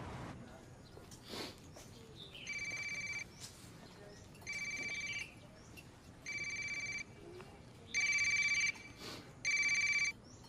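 A phone ringing: five short electronic rings, each under a second long and about two seconds apart, the last two louder.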